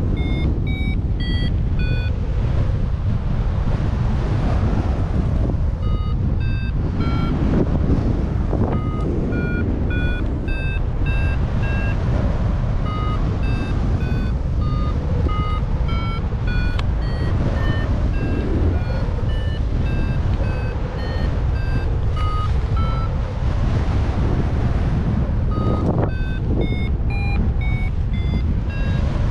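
Paragliding variometer beeping in quick short tones that step up and down in pitch, with a few pauses: the signal of the glider climbing in lift. Under the beeps, wind rushes on the microphone.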